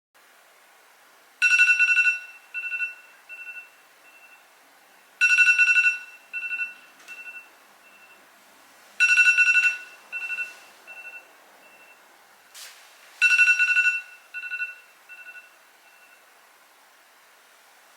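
An electronic alarm tone rings four times, about four seconds apart. Each ring lasts about a second and trails off in fading echoes.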